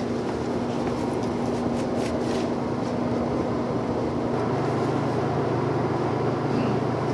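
Conveyor pizza oven running: a steady mechanical noise with a hum whose pitch drops about four and a half seconds in, and a few faint clicks in the first couple of seconds.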